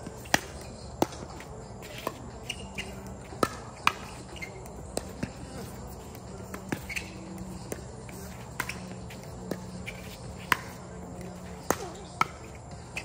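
Pickleball paddles striking the plastic ball in a doubles rally: about a dozen sharp pops at uneven intervals, some louder and some fainter, over a steady low hum.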